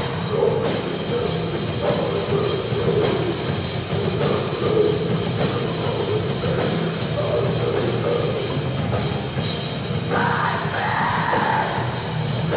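Live heavy rock band playing loud and continuous: distorted electric guitars over a driving drum kit. A fuller, brighter layer comes in about ten seconds in.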